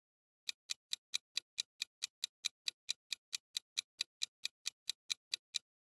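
Clock-style ticking sound effect for a quiz countdown timer: sharp, evenly spaced ticks, about four and a half a second, starting about half a second in and stopping just before the end.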